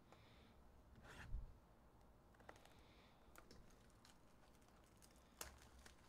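Faint hand-handling of a foil trading-card pack and a cardboard card box: a brief rustling scrape about a second in, then scattered light clicks and taps, the sharpest just after five seconds.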